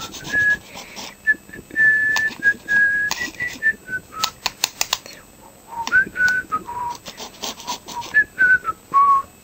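A person whistling a tune in short held notes that step up and down. Sharp clicks and taps of a card on a wooden tabletop come through it, thickest around the middle, as powder is chopped into lines.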